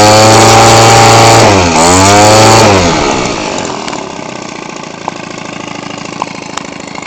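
Converted Weedeater Featherlite 15cc two-stroke trimmer engine, with a gutted muffler and welded pipe, turning a 15x6 propeller at high revs. Its pitch dips once about one and a half seconds in and climbs straight back. About three seconds in it is throttled back and settles to a steady low idle.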